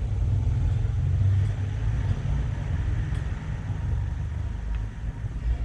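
A steady low rumble, with a couple of faint clicks from small parts being handled.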